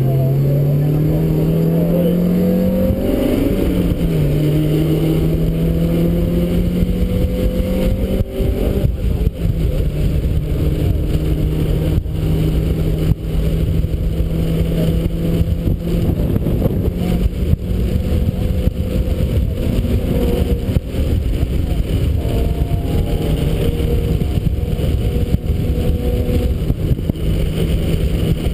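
1991 Mazda Miata's 1.6-litre four-cylinder engine under full throttle on track, heard from the driver's seat: revs climb, drop sharply at an upshift about four seconds in, climb again, then hold steady at high revs for the rest, over constant wind and road noise.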